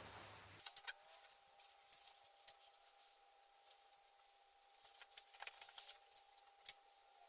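Faint scattered clicks and light metallic knocks of leaf-spring hardware being handled and fitted to a truck's rear axle, with two sharper knocks, one about two seconds in and one near the end. A faint steady hum runs underneath.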